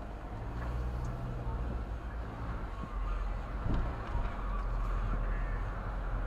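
Car engine and tyre noise heard from inside the cabin while driving slowly, a steady low rumble.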